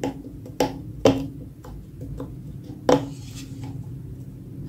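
A knife tip clicks and scrapes against an SMD LED on an LED bulb's aluminium circuit board, prying the yellow phosphor top off the faulty LED. There are three sharp clicks, about half a second, one second and three seconds in, and the last is followed by a short scrape.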